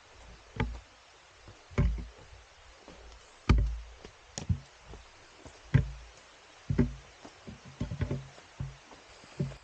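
Footsteps thudding on a leaf-littered dirt trail while hiking uphill, an uneven step about once a second, the loudest thud about three and a half seconds in.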